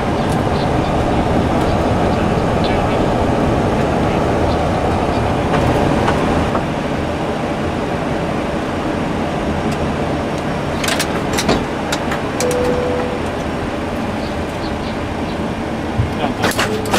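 Steady rumble and hiss of a Boeing 737 flight deck after landing. A few sharp clicks come about two-thirds of the way in and again near the end, and a short single-pitched beep sounds twice.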